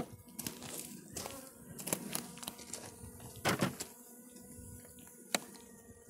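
Wooden beehive frames being handled with gloved hands: scattered light clicks and knocks of wood on wood, with one louder knock about three and a half seconds in. Under it, a faint steady hum from the Russian honey bees on the frames.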